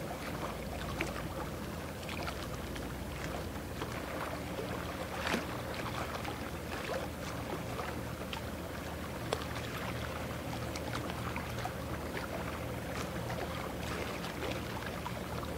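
Low, steady drone of a ship's diesel engine over the rush of water, with scattered small irregular clicks and splashes.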